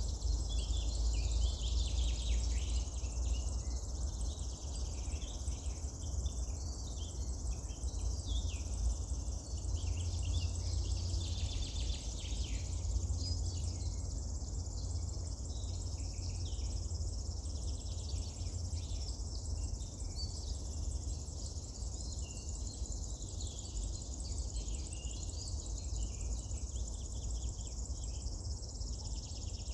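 Wild songbirds singing outdoors: many short chirps and phrases, one after another, over a steady high-pitched buzz and a low rumble.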